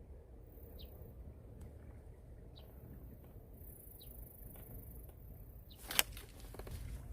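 Outdoor ambience with a low wind rumble on the microphone and a few short, high bird chirps spaced a second or two apart, then one sharp click about six seconds in.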